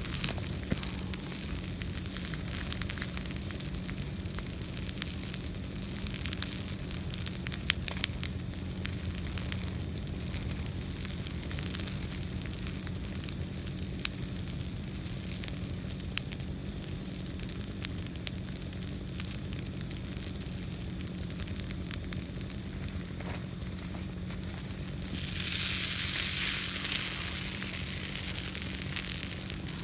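Brush pile of green interior live oak branches burning, crackling and sizzling with scattered sharp pops. Near the end a louder rushing hiss joins for a few seconds.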